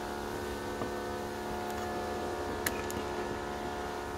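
Steady hum with a few faint clicks; the sharpest click comes about two and a half seconds in.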